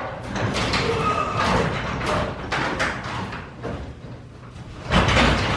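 Broken garage door rattling and scraping as it is handled by hand, with a run of irregular metal knocks and a louder clatter about five seconds in.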